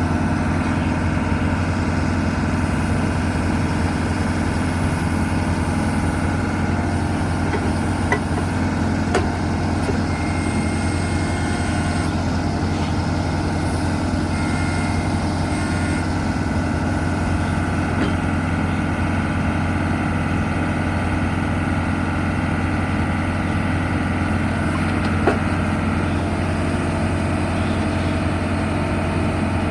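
JCB 3CX backhoe loader's diesel engine running steadily at idle, with a few brief clicks.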